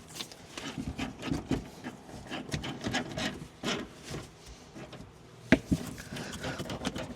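Irregular scraping and clicking of hand tools and metal parts while the rear shock's top-mount nuts are being tightened, with one sharp knock about five and a half seconds in.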